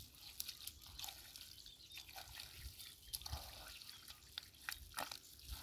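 Faint, scattered drips and small splashes of water as hands dig and scoop wet mud in a shallow muddy ditch.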